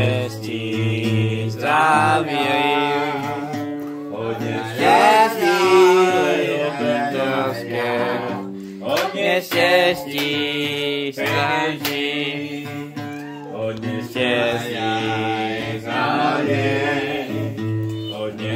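A man singing an ornamented, wavering melody in phrases, accompanied by an acoustic guitar.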